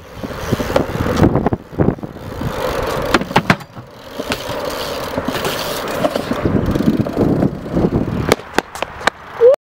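BMX bike tyres rolling on rough concrete, with sharp clacks and knocks as the bike hops and lands. A short rising squeak comes near the end before the sound cuts off.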